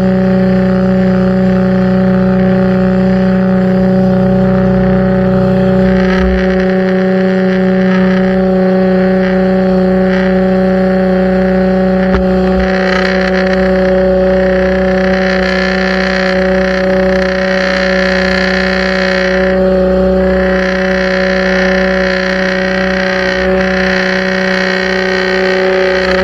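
Pressure washer running steadily, a constant machine hum under a hiss of spraying water that grows louder about halfway through and briefly drops off near the two-thirds point.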